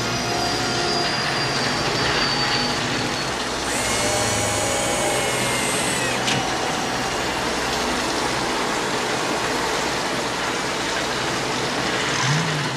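Film sound effects of the flying DeLorean time machine hovering down to land in the rain: a steady mechanical hum with high whines, and a hissing rush that cuts off with a click about six seconds in. A thump comes near the end.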